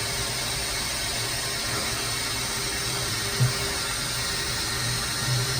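CNC mill running a tool touch-off cycle: a steady hiss with a low hum and a faint steady tone, and one short knock about three and a half seconds in.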